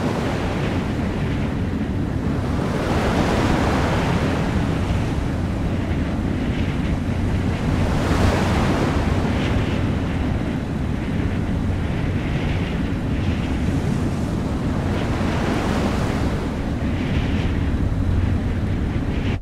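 Wind and sea swell on a ferry's open deck: a steady rushing with a low rumble underneath, swelling and easing in gusts every few seconds.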